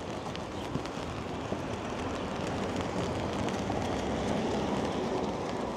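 Steady rain in a city street: a continuous hiss over a low rumble of traffic, with a few light taps.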